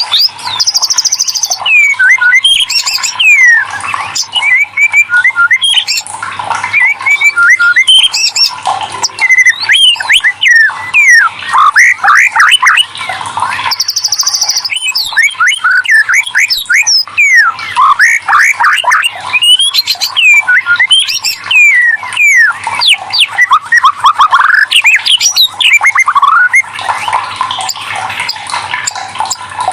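White-rumped shama (murai batu) singing loudly without pause: a fast, varied string of whistles and quick falling notes, with brief buzzy high notes here and there.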